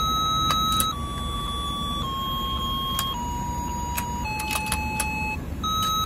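Battery-powered toy fishing game playing its electronic buzzer tune: slow held beeping notes, each about a second long, stepping down in pitch, then starting high again near the end. Under it is the low whir of the turntable motor, with a few light plastic clicks.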